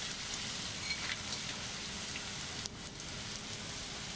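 Dried shrimp, shallots and garlic sizzling in hot oil in a pan: a steady frying hiss with a few faint clicks.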